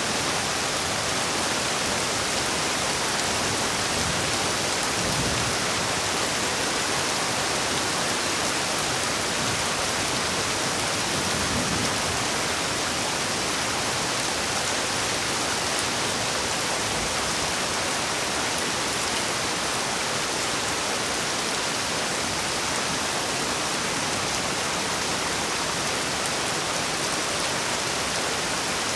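Heavy rain falling steadily, a dense, even hiss with no break or change.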